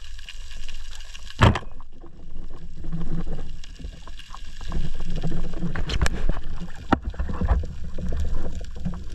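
Underwater, a speargun fires with one sharp crack about a second and a half in. After it come muffled water noise and a low rumble, broken by scattered clicks and knocks as the spear shaft, lodged in the rock with the speared white seabream, is handled.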